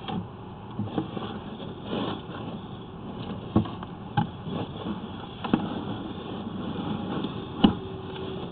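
Sewer inspection camera being pushed down a drain pipe on its push cable: irregular knocks and scrapes over a steady hiss, with the sharpest knock near the end.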